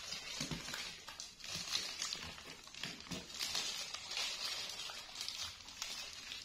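Disposable plastic gloves crinkling and rustling as hands pull flesh from a jackfruit, with many small clicks.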